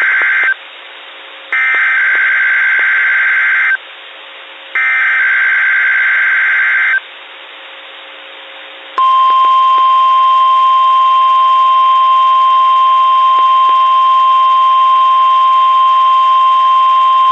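NOAA Weather Radio SAME alert header: three bursts of warbling digital data tones, each about two seconds long with a short pause between them, the first already under way. About nine seconds in, the steady 1050 Hz weather alert tone begins and holds on. Together they make up the station's weekly test of its tone and SAME alert systems.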